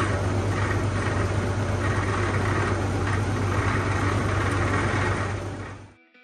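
Tractor engine running steadily, loud, with a deep low hum and dense mechanical noise over it; it fades away shortly before the end.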